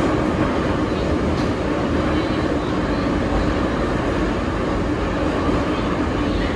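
Metro train running at a steady pace: an even rumble with a steady hum, not rising or falling, the noise of a train running on its line.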